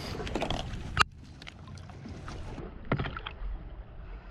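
Low, steady wind and water noise on a small fishing boat, with a sharp click about a second in and a few lighter knocks around three seconds, the sounds of a fish and gear being handled on deck.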